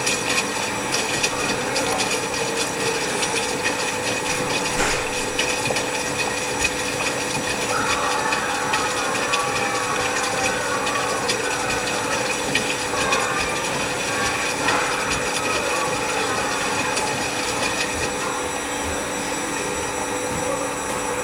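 LG washing machine running, a steady mechanical noise with a faint constant whine and many small clicks and rattles.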